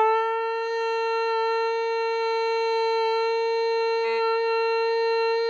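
A person imitating a train horn: one long, steady horn-like note held at a single pitch.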